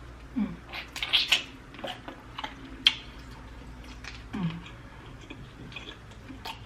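Close-miked eating sounds of a person eating sauced prawns: chewing, lip smacks and small wet clicks, scattered and uneven. Twice, about half a second in and again a little past four seconds, a brief low sound falls in pitch.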